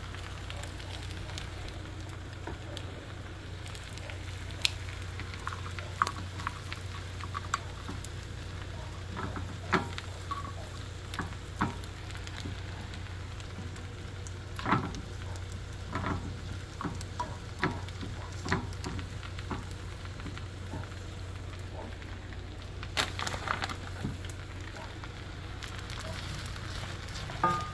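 Shrimp sizzling in oil in a HexClad hybrid stainless-steel pan, over a steady low hum. Scattered sharp clicks come from tongs tapping the pan as the shrimp are turned.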